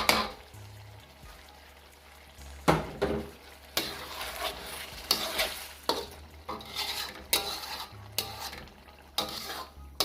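Lamb and plain yogurt sizzling in a karahi while a spatula stirs and scrapes, knocking sharply against the pan at uneven intervals after the first couple of seconds. The yogurt is being cooked down into a thick gravy.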